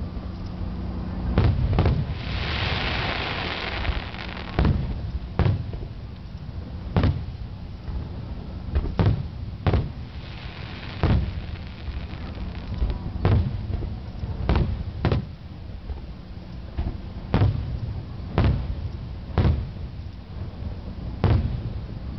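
Aerial firework shells bursting overhead, sharp booms coming irregularly every second or two. There is a stretch of hiss about two seconds in and a fainter one around ten seconds in.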